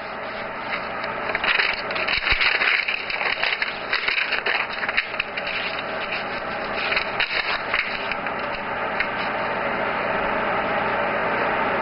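Airbrush spraying paint: a steady hiss of compressed air through the brush, building up over the first couple of seconds, with a few light clicks.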